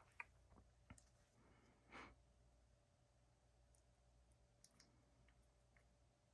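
Near silence with a few faint clicks and ticks, and a soft brief scrape about two seconds in: a wooden stick tapping and scraping in a small container of thick fabric paint as paint is scooped out onto a screen-printing screen.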